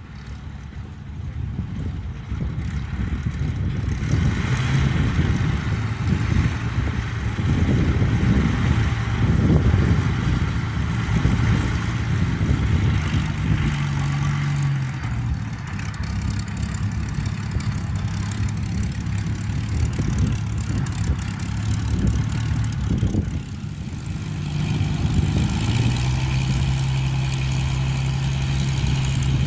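Piston aircraft engine running at low power, growing louder over the first few seconds, with its steady tone shifting in pitch about halfway through and again near the end.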